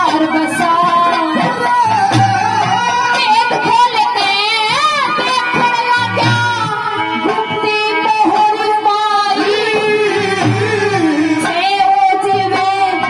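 Haryanvi ragni folk music: a woman sings a gliding, ornamented melody through a microphone and PA. A dholak drum beats beneath her, with other instruments.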